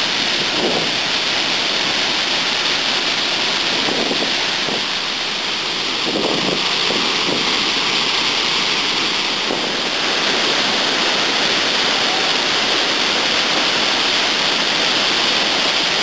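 Waterfall swollen with snowmelt runoff, heard close by as a steady, loud rush of falling and crashing water.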